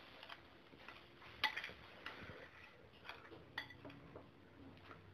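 A spoon stirring raw mango pieces in tamarind water in a bowl, with a few light, irregular clinks of the spoon against the bowl.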